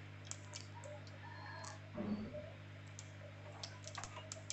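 Cumin seeds crackling in hot oil in an aluminium pressure cooker: faint, scattered sharp pops and clicks over a steady low hum, with a soft low bump about two seconds in. This is the tempering stage, as the seeds start to crackle.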